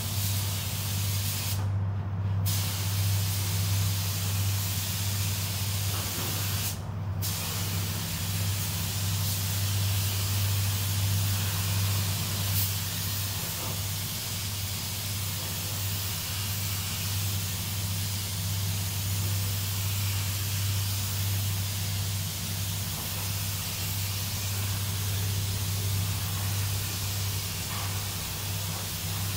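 Compressed-air paint spray gun hissing as it sprays 2K clearcoat, cutting out briefly twice in the first several seconds as the trigger is released. A steady low hum runs underneath.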